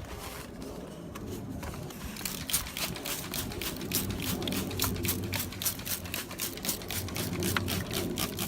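Rapid back-and-forth rubbing strokes on a plastic headlight lens, wiping and buffing off dried whitening toothpaste, starting about two seconds in at about four to five strokes a second.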